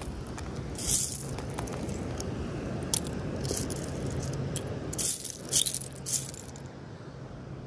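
Loose seashells clinking and rattling against each other in a few short, irregular bursts, over a steady low rush.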